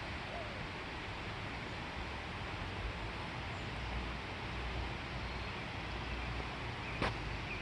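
Steady, even rushing noise, with a short sharp click about seven seconds in.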